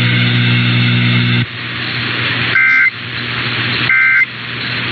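Emergency Alert System digital data bursts sent over radio: two short, buzzy two-tone bursts about a second and a half apart, the end-of-message code that closes the test broadcast. Before them a steady hum with static cuts off about a second and a half in, leaving a hiss of radio static.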